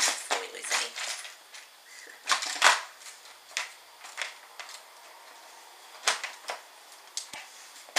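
LEGO bricks clattering inside a plastic LEGO sorting head as it is rocked and shaken to settle the pieces through its sieve trays: scattered sharp clicks and short rattles with brief pauses between.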